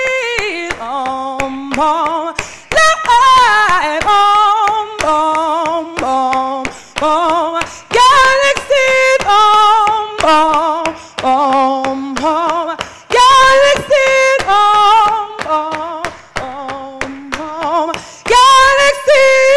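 A woman singing solo into a microphone, in short phrases of held notes that step up and down. The singing gets louder near the end.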